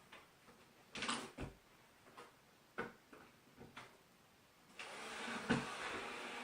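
Several separate knocks and clatters, as of tools or building materials being handled. About five seconds in, a steady rushing, whirring noise starts and holds.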